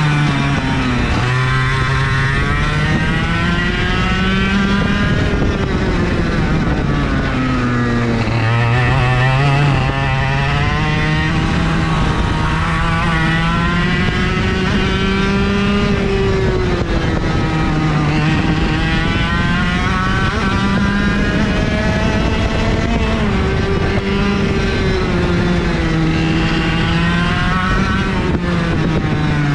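IAME KA100 100cc two-stroke kart engine running hard around a track. Its revs climb steadily, then fall away sharply several times as it slows for corners and pulls out again.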